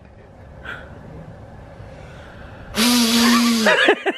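A man blowing a snot rocket: a forceful blast of air out through the nose, about a second long, sprayed out as a loud hiss with a steady low hum under it. A short sniff comes under a second in, before the blast.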